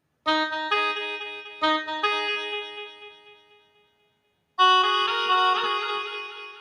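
Ringtone melody: a few pitched notes that ring and fade out to silence about four seconds in, then a second short phrase that starts about half a second later and fades.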